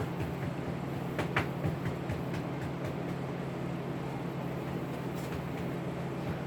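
Steady low hum from a running machine, with a few faint clicks about a second in.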